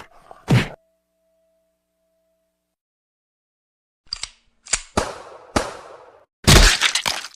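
A string of short cartoon sound effects: a quick hit, a pause, then four sharp pops, each with a short fading tail, spaced about half a second apart, and a louder noisy burst near the end.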